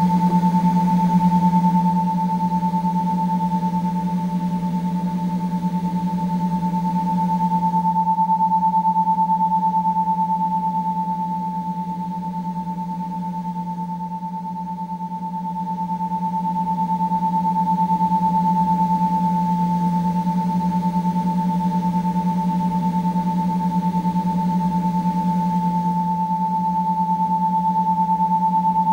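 A steady, high pure electronic tone held over a low droning hum. Both run unbroken, and the level dips slowly around the middle before rising again.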